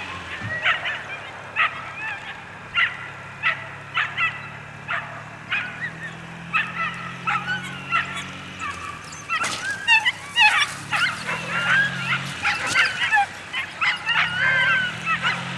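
Excited dogs yipping and whining in high-pitched yelps, about one every half second at first, then a rapid string of wavering squeals from about ten seconds in.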